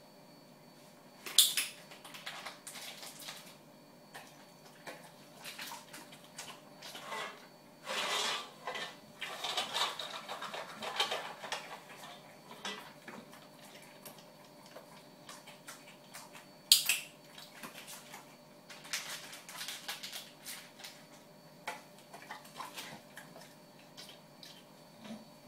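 An English bulldog eating from a hand-held stainless steel bowl: the metal bowl clinks and rattles in irregular clusters. Two sharp clanks stand out, one about a second in and one about two-thirds of the way through.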